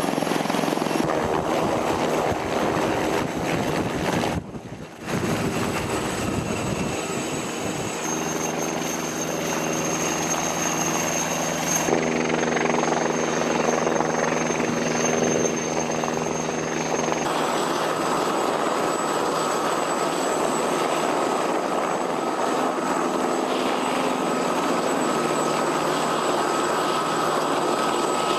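Military helicopters' turbine engines and rotors running, in several segments that change abruptly, with a brief dip about four to five seconds in. A steady high turbine whine runs through most of it.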